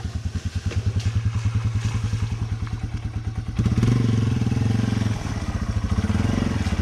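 Yamaha TW200's air-cooled single-cylinder four-stroke engine pulling at low revs under load on a muddy hill climb. About three and a half seconds in it opens up louder, easing off briefly twice.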